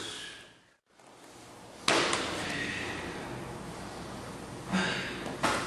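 Steady room noise that drops out briefly about a second in. Near the end come two dull thuds as two men grapple on a padded martial-arts mat.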